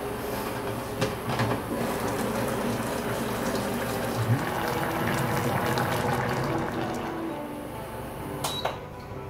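Fish paksiw (fish in vinegar broth) simmering in a pot on an induction cooker, a steady bubbling hiss, with a few light knocks of the glass lid. Near the end come a short beep and clicks from the cooker's control panel being pressed.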